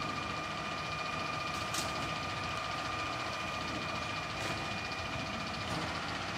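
Rear-loading garbage truck running at the curb, with a steady high-pitched whine throughout and three short clanks as a cart is emptied into its hopper.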